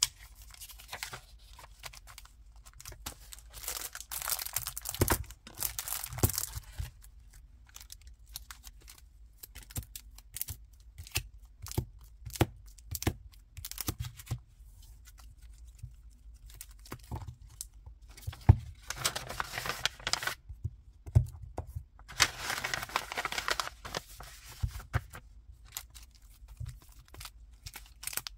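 Clear plastic sleeves and cellophane-wrapped stationery packs crinkling and rustling as hands sort and stack them, with light taps and clicks as packs are set down. There are a few longer stretches of crinkling, one several seconds in and two more past the two-thirds mark.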